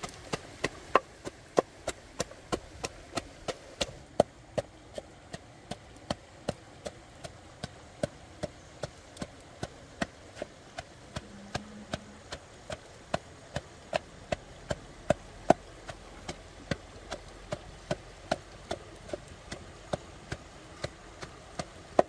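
Wooden pestle pounding red chillies and garlic in a wooden mortar: a steady run of dull knocks, about three strokes a second.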